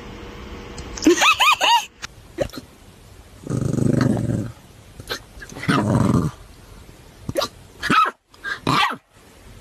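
Puppies hiccuping: short, sharp hiccups scattered throughout, with high rising-and-falling whines about a second in and two longer, lower-pitched vocalisations near the middle.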